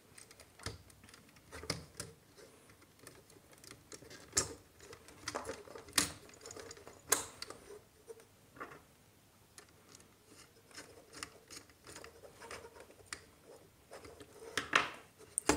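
Scattered small clicks and taps, with a few sharper ones, from a screwdriver and fingers working a wire into the brass screw terminal of a 5-pin socket on a plastic modular switch board.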